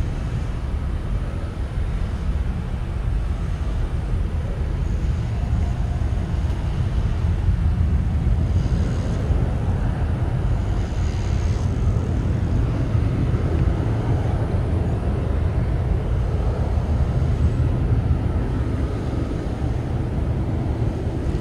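Steady low rumble of airliner engine noise, with a faint high whine about halfway through.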